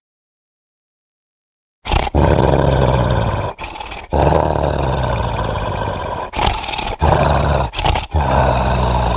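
Deep great-ape roaring sound effect of the orangutan kind. It starts about two seconds in after a silence and goes on in long, low growling bouts broken by short gaps.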